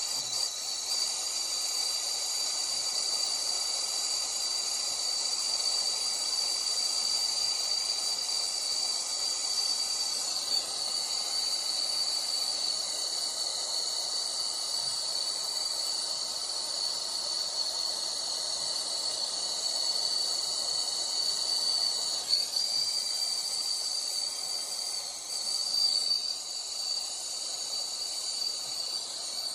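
Steady hissing of a brazing torch flame heating the copper of a leaking evaporator coil, with a steady high-pitched tone over it.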